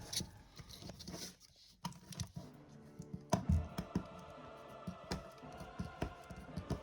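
Scattered light clicks and taps of a small plastic airsoft hop-up unit being handled and picked at by hand, with a sharper click about three and a half seconds in.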